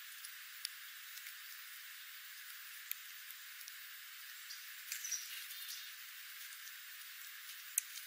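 Small seed-eating birds, dark-eyed juncos and sparrows, pecking and hopping on scattered birdseed: light scattered ticks over a steady hiss. There is a brief faint chirp about five seconds in, and one louder tick near the end as a bird flies up.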